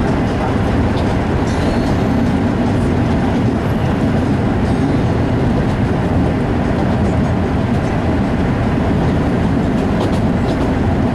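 MBTA Red Line subway train running along the track, heard from inside its rear cab: a steady, loud rumble of wheels on rail with a few faint clicks.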